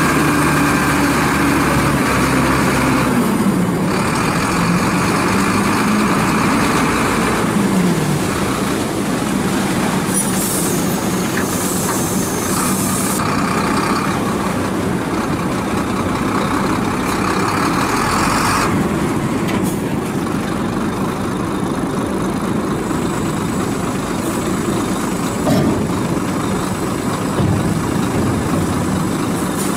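Howo three-axle dump truck's diesel engine running while the truck tips its load of sand, the engine pitch dropping a few seconds in and again at about eight seconds.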